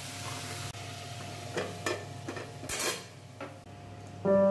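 Vegetables sizzling in a wok as a flat metal spatula stirs them, briefly, then a few light knocks and clatters. Background music comes in near the end and is the loudest sound.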